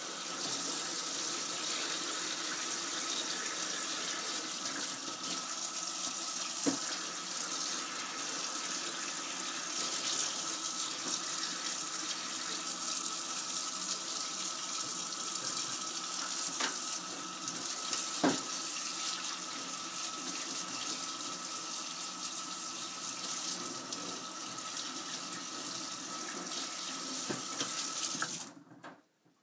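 Kitchen tap running into a stainless-steel sink: a steady rush of water with a faint steady whistle and a few sharp knocks, cut off abruptly near the end.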